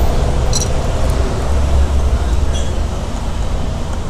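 Road traffic going by: a low rumble, heaviest for the first two seconds and then easing off, with a couple of faint clicks over it.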